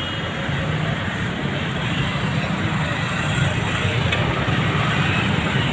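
Steady road traffic noise: the engines and tyres of passing vehicles.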